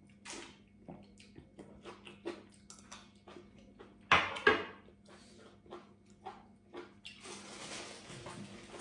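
A person eating close to the microphone: many small wet mouth smacks and chewing clicks, two loud knocks of a metal spoon in a glass bowl a little after four seconds in, and a stretch of dense, steady chewing noise near the end.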